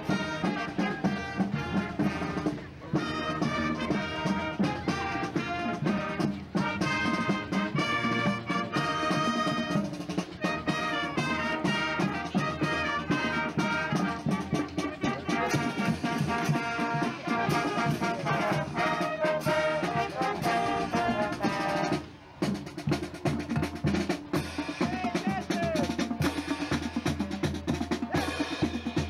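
Marching band playing a tune on brass (trumpets, trombones and sousaphones) over snare drums. About three-quarters of the way through the horns break off briefly and the drums come to the front.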